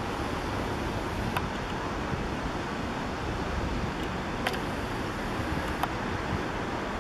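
Steady outdoor background noise, heaviest in the low end, with a few faint clicks.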